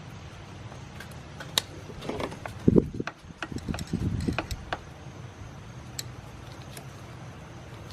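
Scattered metallic clicks and knocks of hand tools and parts being worked while tightening the fuel filter's hose connections, with a few heavier knocks around three and four seconds in.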